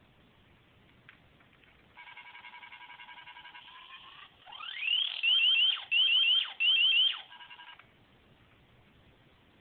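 Electronic sound effect from the sound module wired to the modified Nerf Longshot's pressure-sensitive trigger. About two seconds in a steady electronic tone starts. It turns into a rising sweep, then three loud groups of three quick chirps, and drops back to the tone before cutting off about eight seconds in.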